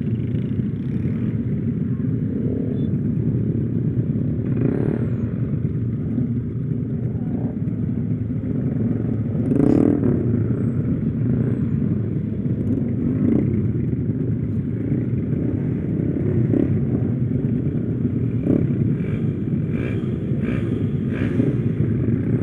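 Small motorcycle engine running on the move, heavily masked by steady wind noise on the microphone, with a few brief clattering knocks about ten seconds in and again near the end.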